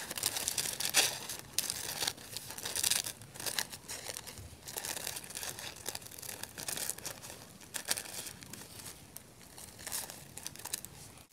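Scissors snipping through a stack of tissue paper in short, irregular cuts, the paper rustling and crinkling as it is held and turned.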